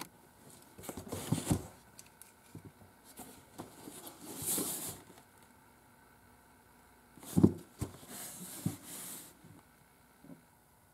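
Cardboard shipping box being handled and turned over on a table: scraping and rustling of the cardboard, with a sharp knock a little past the middle.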